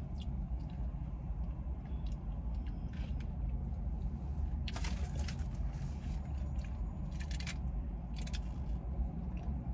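Close-up eating sounds: soft chewing and small mouth clicks from someone eating a mashed-potato-and-gravy KFC Famous Bowl, with a few sharper clicks in the second half and a sip through a straw near the end. Under it runs a steady low rumble inside the car.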